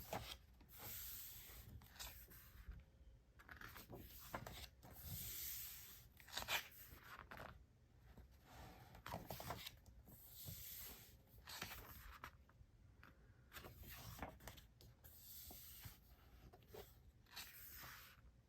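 Glossy photo-book pages being turned by hand: faint, irregular paper swishes and rustles, about a dozen over the stretch.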